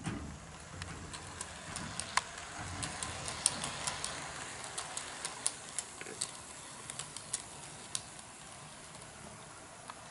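HO-scale KATO EF81 electric locomotive with Koki 50000 flatcars running on KATO Unitrack: a soft running rumble with irregular sharp clicks as the wheels cross rail joints and turnouts. The clicks thin out near the end as the train moves away.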